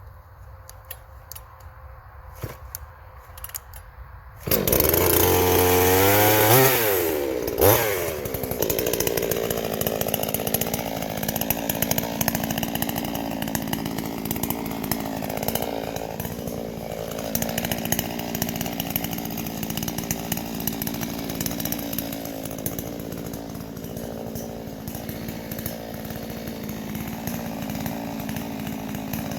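Chainsaw starting about four and a half seconds in, revving up and down, then running steadily on, with its pitch shifting as it knocks the bumps and knots off a round log to make a flat spot.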